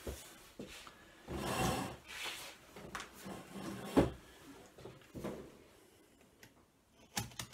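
Handling noises as a person gets up from a chair at a table: rustling and shuffling, with one sharp bang about four seconds in and a few light clicks near the end.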